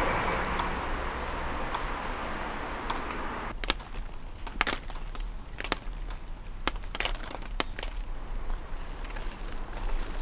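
Footsteps crunching underfoot, with sharp irregular cracks starting about three and a half seconds in, over a steady rush of wind noise.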